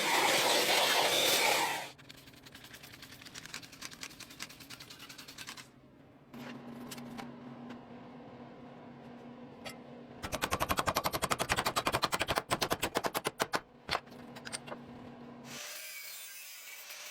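A power tool hammering rapidly in bursts, the loudest burst lasting about three seconds past the middle, with a loud rushing hiss at the start and again near the end.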